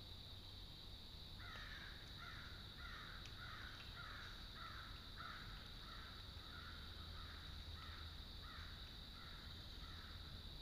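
A crow cawing in a long, even series of about a dozen caws, a little under two a second, starting about a second and a half in.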